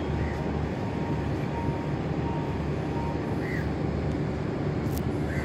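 Steady low rumble of a ship's engines and machinery, with a faint thin tone coming and going.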